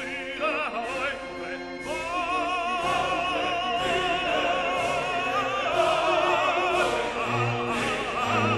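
Classical operatic singing over an orchestra: a trained voice holds long notes with strong vibrato from about two seconds in.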